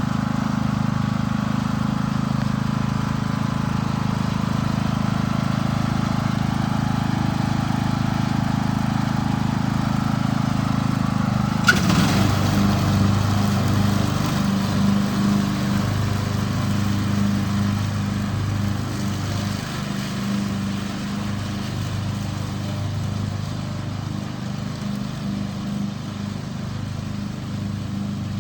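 Lawn mower engine running steadily. About twelve seconds in there is a sharp click, after which the engine note drops lower and runs unevenly.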